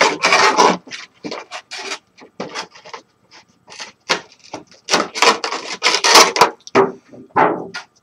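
A cardboard packaging box being handled and opened by hand: irregular scraping and rubbing strokes, loudest just after the start and again around five to six seconds in.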